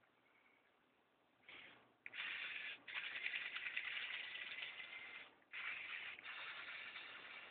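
Lego Technic excavator's Power Functions electric motors whirring through plastic gears and linear actuators, run in several spells of a second to a few seconds with short stops, as its functions are driven from the IR remote. Quiet for the first second and a half before the motors start.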